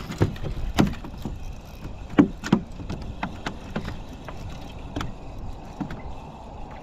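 Spinning reel being wound in against a hooked tailor, over a steady wash of wind and water noise, with several sharp knocks scattered through, the loudest about two seconds in.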